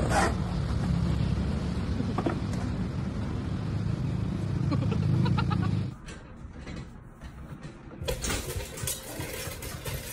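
Skateboard wheels rolling over rough paving with a steady low rumble, then, after a cut, a clattering crash about two seconds from the end as a home dance pole and a wall mirror topple.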